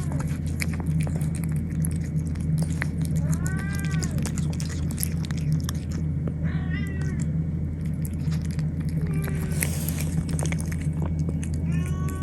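Domestic cat meowing about four times, each meow rising and falling in pitch, a few seconds apart, over a steady low hum.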